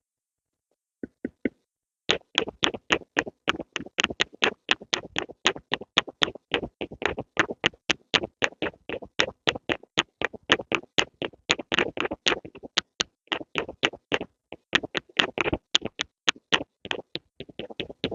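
Rapid pencil tapping, about five sharp taps a second. It starts with a few taps about a second in and runs steadily on from about two seconds in.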